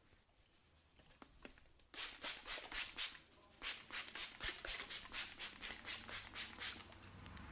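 Brisk rubbing massage strokes, hands scrubbing over the head at about five strokes a second. The strokes begin about two seconds in, after a few faint taps.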